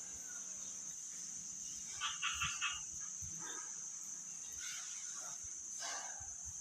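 Faint animal calls: a quick run of four short chirps about two seconds in, with a few fainter calls later, over a steady high hiss.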